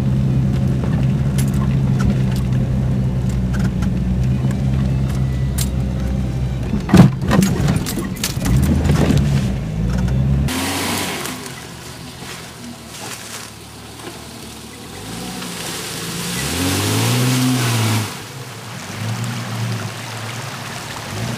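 Jeep Cherokee XJ engine running steadily under load, heard from inside the cab with rattles and one hard thump as it crawls a dirt trail. Then, from outside, the engine revs up and down as the Jeep drives through a creek, with water splashing.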